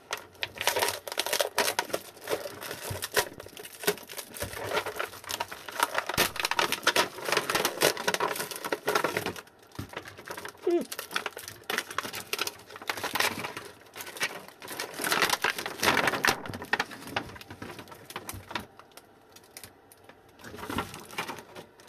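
Plastic wrapping on an e-bike battery's cell pack being sliced with a ceramic knife and pulled away: a dense run of small crackles and scrapes, easing to quieter handling for the last few seconds.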